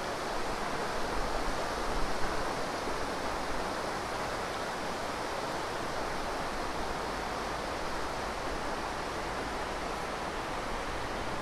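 River rapids: water rushing steadily over and between rocks, a continuous hiss, a little louder in the first few seconds.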